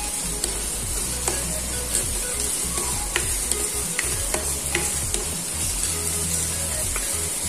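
Chopped onion and green chilli frying in oil in a wok while a silicone spatula stirs them: a steady sizzle with scattered sharp ticks.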